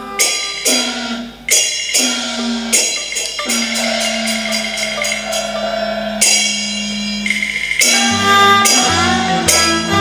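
Cantonese opera accompaniment band playing an instrumental interlude. Sharp percussion strikes come every second or so over sustained melody notes, with one note held for several seconds in the middle.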